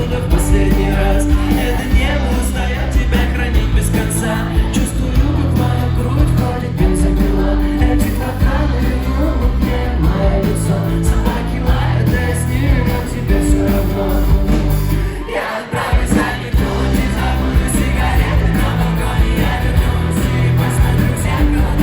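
Live rock band playing an acoustic arrangement of a song, with a singer's voice over the guitars and a heavy bass; the low end drops out briefly about two-thirds of the way through.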